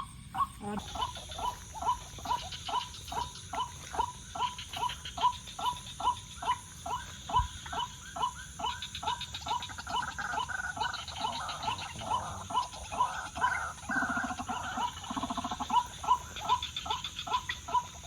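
White-breasted waterhen (ruak-ruak) calling: a short note repeated very evenly, about two to three times a second, over a steady high insect buzz. Between about ten and fifteen seconds in, louder, rougher calls join it.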